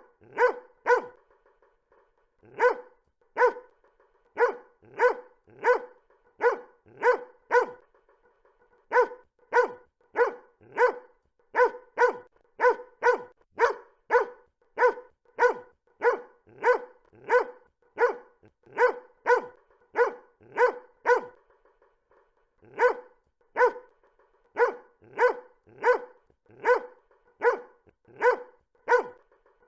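A dog barking over and over in a steady rhythm, about one and a half barks a second, each bark alike, with a few brief pauses.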